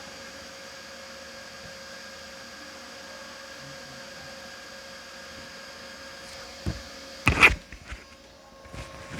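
Steady electrical mains hum with hiss from the recording setup, then a short knock and, a moment later, a louder sudden thump near the end.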